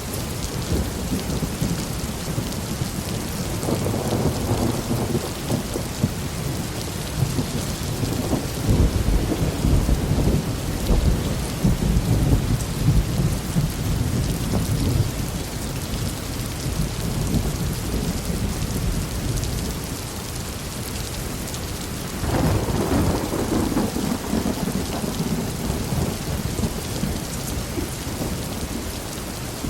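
Heavy rain falling steadily, with rolling thunder: a long rumble builds about three seconds in and dies away, then a second peal breaks sharply past twenty seconds in and rolls on.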